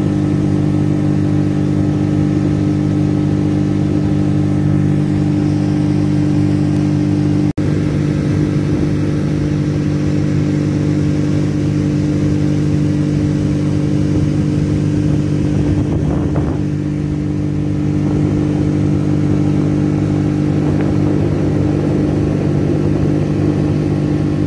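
Gasoline engine of a small motorboat running steadily at an unchanging pitch, with a sudden momentary dropout about seven and a half seconds in.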